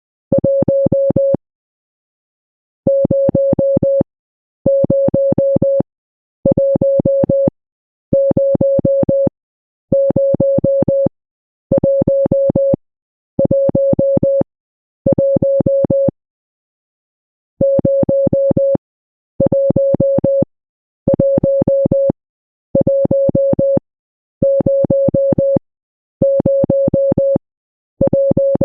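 Morse code sent as a mid-pitched electronic beep tone: groups of rapid short beeps, each group about a second long, with short silences between the groups.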